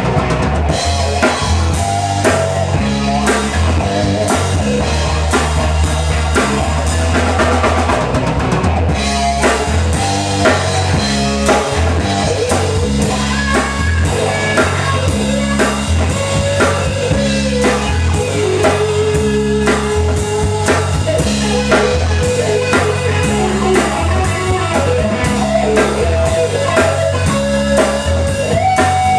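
A live jam-band instrumental with a steady drum-kit beat, bass notes and electric guitar. From about halfway through, the guitar plays long held lead notes that bend between pitches.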